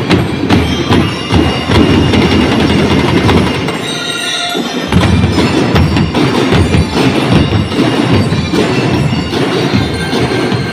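School drum and lyre corps drumming: a rank of large bass drums and snare drums beating a dense, loud march rhythm. The low drums drop out for about a second around four seconds in, then come back in.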